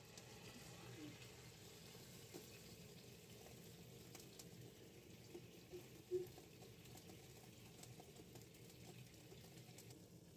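Near silence: a faint steady hiss with scattered soft clicks, and a brief soft knock about six seconds in as the marinated mutton leg is set into the stainless steel steamer pot.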